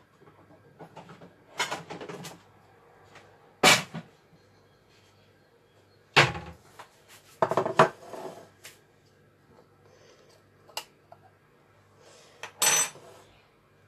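Dishes and kitchen utensils being handled and set down: a string of separate knocks and clinks, the sharpest a little under four seconds in and again about six seconds in.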